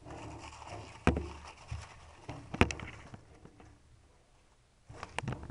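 Handling noise as a handheld camera is pushed among artificial plants in a gecko enclosure: rustling with a few sharp knocks, the loudest about two and a half seconds in. It goes quiet for about a second, then more clicks come near the end.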